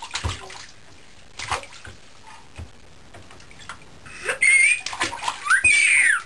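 A few light splashes of bath water, then two loud, high-pitched baby squeals, about four seconds in and again near the end, the second rising and then falling in pitch.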